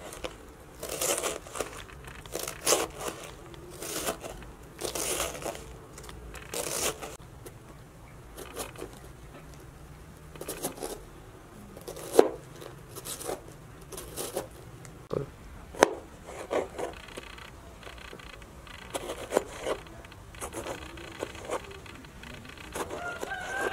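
Large kitchen knife cutting through a head of red cabbage on a plastic board: irregular crunching cuts, with a few sharp knocks of the blade against the board.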